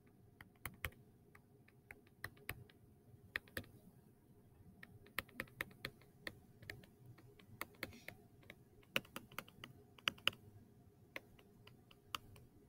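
Faint, irregular ticks and taps of a stylus pen on a tablet screen as equations are handwritten.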